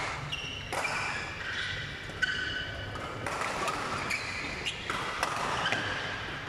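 Badminton rally: repeated sharp cracks of rackets striking the shuttlecock, mixed with short high squeaks of court shoes on the synthetic court mat.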